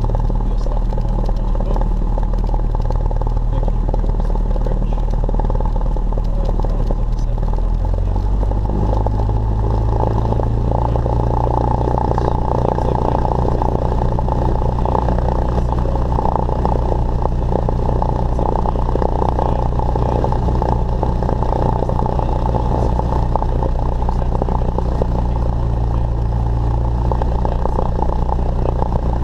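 Single-engine Cessna's piston engine and propeller running steadily, heard inside the cockpit. About eight seconds in, the engine speed steps up and then holds at the higher setting.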